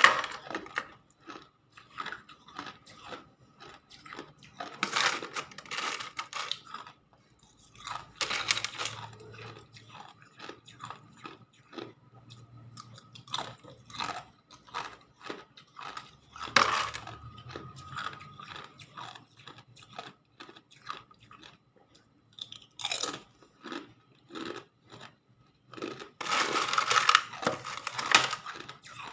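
Hard ice being bitten and chewed close to the microphone: loud crunching bites come every few seconds, with smaller cracks and crackles of ice fragments in between.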